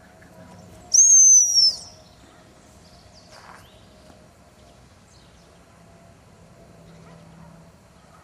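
One blast of just under a second on a high-pitched dog whistle, its pitch dipping slightly as it ends: a single blast is the gundog signal for a spaniel puppy to sit.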